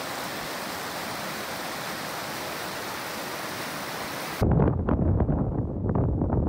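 Shallow rocky stream rushing over boulders: a steady rush of water. About four seconds in it cuts off suddenly and a louder, uneven low rumble with irregular crackles takes over.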